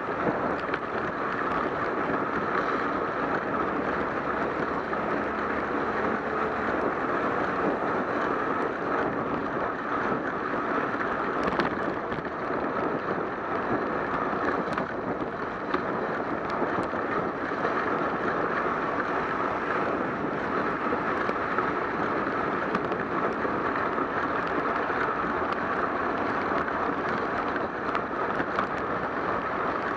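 Steady wash of noise from a bicycle riding on a wet road: tyre hiss and spray on the soaked pavement mixed with wind on the bike-mounted camera's microphone, with a few faint clicks.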